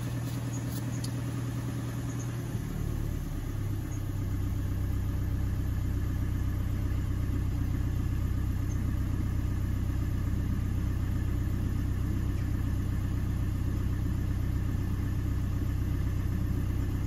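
Fiat Ducato van's engine idling steadily, heard from inside the cab. About three seconds in its note drops slightly and gets a little louder.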